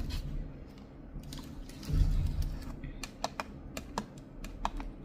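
Long natural fingernails tapping on a computer keyboard while typing: a run of sharp, light clicks from about three seconds in. A dull low thump about two seconds in is the loudest sound.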